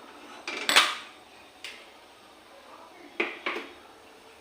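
Metal cookware and utensils knocking and clattering on a kitchen stove: a few sharp knocks with a short ring, the loudest under a second in, one more a little later, and two close together about three seconds in.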